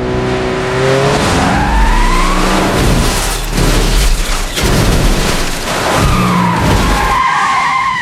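Car crash sound effect: a car engine revving and tyres squealing in a skid, over a heavy rumbling noise with a couple of sharp hits in the middle, and another tyre squeal near the end.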